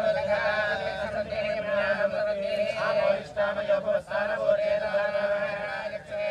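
Vedic priests chanting Sanskrit mantras together, over a steady held tone.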